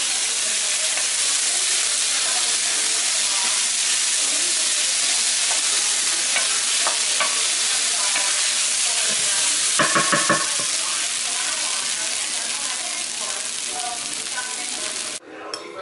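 Quinoa and vegetables sizzling in a hot nonstick frying pan as a wooden spoon stirs them, with faint scrapes of the spoon; the sizzle cuts off suddenly near the end.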